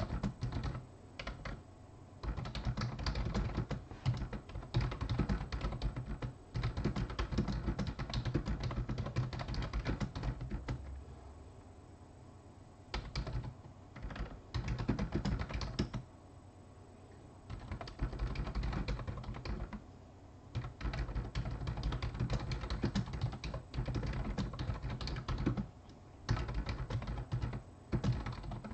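Typing on a computer keyboard in runs of quick keystrokes, broken by short pauses of a second or two.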